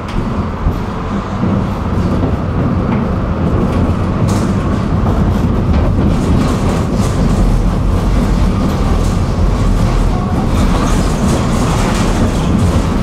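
Tram running along its track, heard from inside the car: a steady low rumble of wheels and motors that builds over the first couple of seconds, with occasional clicks from the rails.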